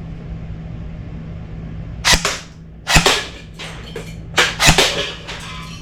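Zion Arms PW9 Mod 1 airsoft electric gun firing single shots at cans: about five or six sharp cracks at irregular intervals, starting about two seconds in, some in quick pairs.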